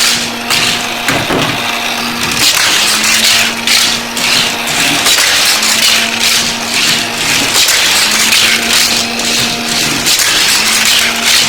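Small battery-driven motor of a Hot Wheels track set's booster running with a steady hum that dips and resumes every second or two, over a dense rattle and clatter of plastic toy cars and track.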